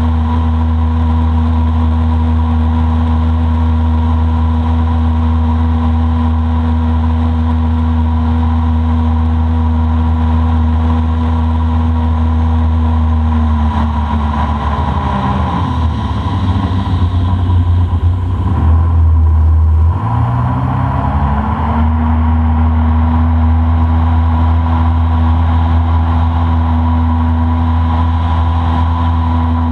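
Boat motor running steadily at cruising speed. About halfway through it is throttled back, its pitch dropping for a few seconds, then it is brought back up to speed.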